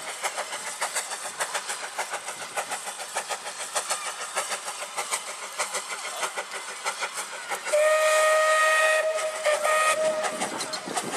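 Small narrow-gauge saddle-tank steam locomotive working along, its exhaust beating in a fast, even rhythm. About eight seconds in, its steam whistle blows twice: a long blast, then a shorter one.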